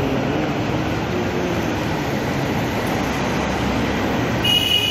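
A steady, loud rumbling noise, with a short high-pitched squeal near the end.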